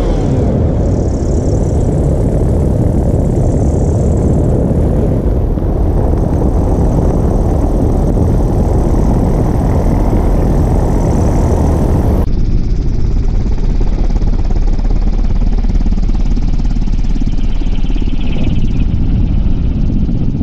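Alpha 800 unmanned helicopter descending in autorotation: a loud, steady, low rumble of rotor and airflow noise. About twelve seconds in the sound changes abruptly and becomes duller.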